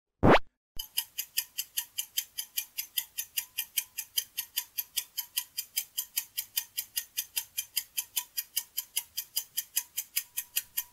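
A short whoosh sweeps up in pitch, then a ticking-clock countdown sound effect ticks evenly, about four to five ticks a second, timing the guess.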